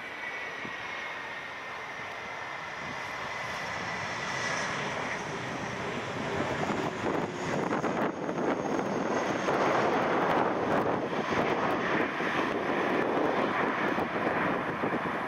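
Airbus A330-300's Pratt & Whitney PW4000 turbofans just after touchdown: a whine falling slowly in pitch, then a louder, rougher rush of engine noise that builds as the airliner rolls past on the runway and is loudest about ten seconds in.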